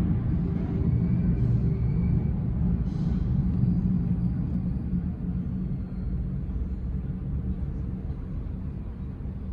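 Jet airliner engines rumbling low and steady, slowly fading through the second half.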